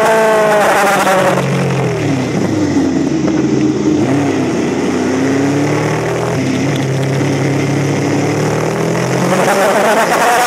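Air-cooled inline-four engine of a Honda CB900F racer heard from on board at race pace, with wind rush. The engine note drops over the first second or so as the throttle is rolled off into a corner, holds lower through the bend, and climbs again near the end as the rider accelerates out.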